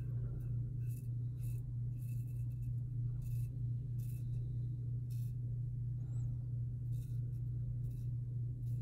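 Open-comb double-edge safety razor scraping through lathered stubble on the chin and neck in many short, crisp strokes, over a steady low hum.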